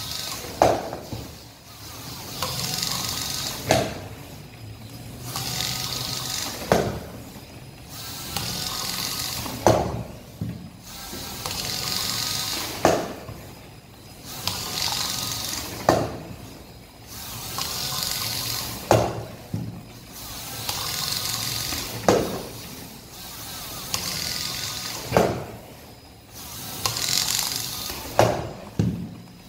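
Small soccer robot shooting at goal over and over: a sharp knock about every three seconds as the ball is kicked into the goal, about ten in all. Between knocks a whirr of the robot's wheel motors swells and fades as it drives back to the ball.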